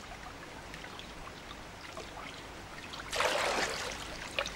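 Water trickling and lapping around a canoe, with a louder splash about three seconds in.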